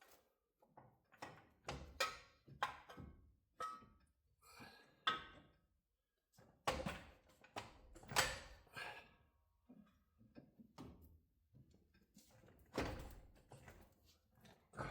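Irregular metallic clunks and knocks, a dozen or so, some with a short ring, as heavy front suspension parts and tools are handled and set in place on the truck.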